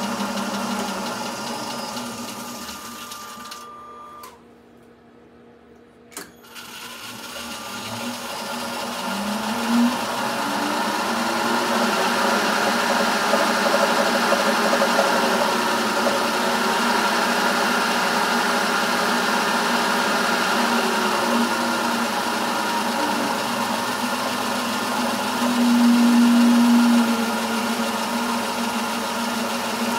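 Bridgeport milling machine's spindle motor, fed by a variable frequency drive, running, then winding down to a stop about four seconds in. A single click comes about six seconds in. The motor then ramps back up over several seconds and runs steadily, its pitch shifting as the speed knob is turned, with a brief louder stretch near the end.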